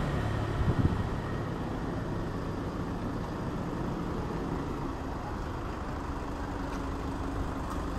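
Steady low engine rumble and traffic noise from motor vehicles, with a short knock about a second in.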